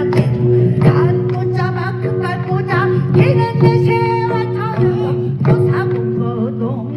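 Korean traditional music: a female pansori singer's voice over plucked geomungo and buk drum strokes.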